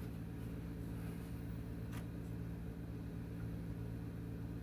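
Steady low machine hum of fixed tones, with a single light click about two seconds in.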